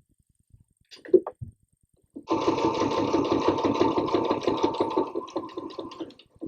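Sewing machine stitching steadily through hook-and-loop (Velcro) tape on a fabric cord keeper, starting about two seconds in and easing off near the end. A few short clicks come just before it, one of them sharp, about a second in.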